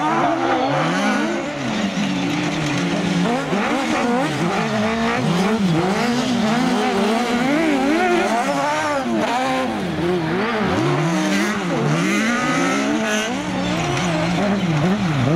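Several racing buggy engines revving up and down over and over, their pitches rising and falling and overlapping as the buggies race around an ice track.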